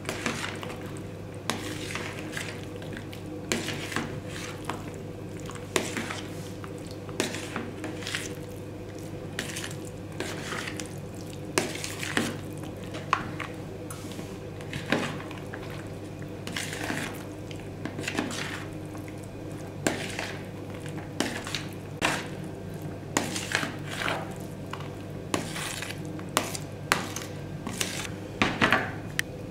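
Metal spoon stirring a salad in a plastic bowl, with short scrapes and clinks against the bowl about once a second, over a steady low hum.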